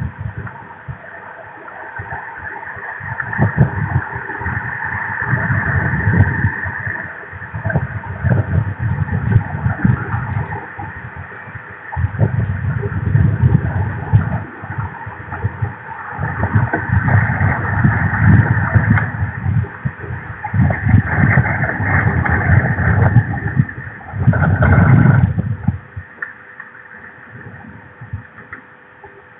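Gusty wind rumbling on an outdoor nest camera's microphone, coming and going in irregular surges, with a strong gust about 25 seconds in before it eases off near the end. A faint steady electrical hum runs underneath.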